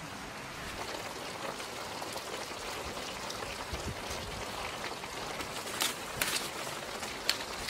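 Mixed vegetables sizzling in a hot wok over an open fire: a steady hiss with a few sharp crackles about six seconds in and near the end.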